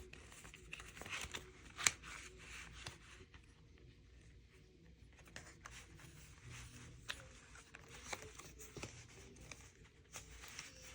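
Soft rustling and scattered light clicks of paper cash being handled, with one sharper click about 2 seconds in.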